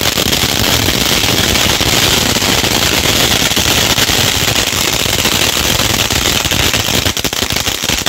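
Ground fountain firework (anar) spraying sparks, giving a loud, steady hiss with dense crackling throughout.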